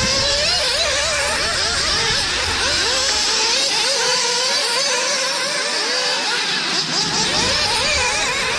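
Several small nitro two-stroke glow engines in RC off-road racing cars revving up and down as they race, their whining pitches rising and falling and overlapping one another.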